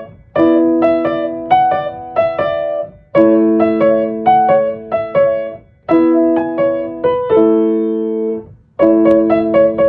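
Solo piano background music: a light melody over held chords, played in short phrases of about three seconds, each ending in a brief pause.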